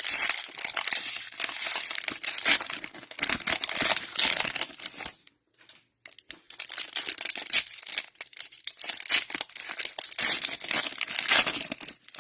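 Plastic wrapper of a Mosaic football cello pack crinkling and tearing as the pack is opened by hand, in two spells with a short pause about five seconds in.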